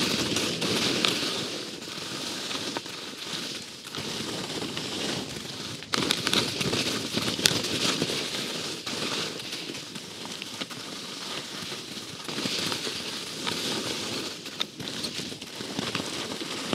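Skis scraping and chattering over hard, tracked snow, the hiss swelling and fading every few seconds with the turns, with scattered sharp clicks and wind buffeting the microphone.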